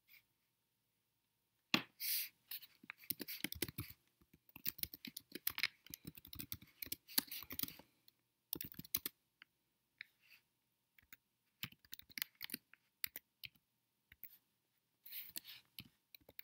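Irregular, faint clicks and taps of hands working a computer keyboard and mouse, in clusters with short quiet gaps.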